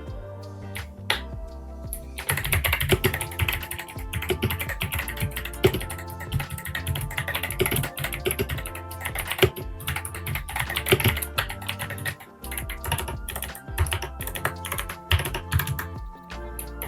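Fast typing on a mechanical keyboard with Kailh Box White V2 clicky switches: a dense run of sharp clicks that picks up about two seconds in, with background music underneath.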